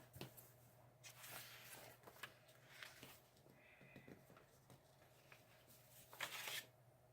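Faint rustling and creasing of a printed copy-paper chip bag being folded by hand, with light scattered clicks and a louder rustle about six seconds in.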